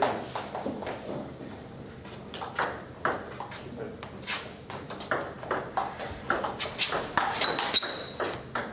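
Table tennis ball clicking off the rubber of the bats and bouncing on the table: scattered bounces at first, then a rally with a click about every half second in the second half.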